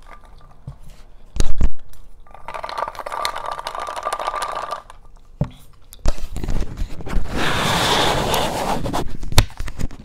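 Close, loud chewing of salad with crunchy toppings, in two long crunching spells, with two sharp knocks about a second and a half in.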